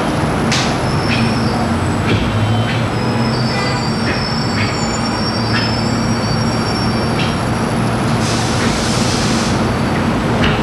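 Taekwon-Do pattern being performed: sharp snaps of the cotton uniform and footfalls on the dojang floor at each technique, every half second to a second. Underneath runs a steady loud rumble and mains hum, with a high thin squeal for a couple of seconds near the middle.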